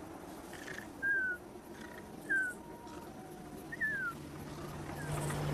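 Cartoon lizard character whimpering: three short squeaks, each falling in pitch, about a second apart. A low steady hum comes in near the end.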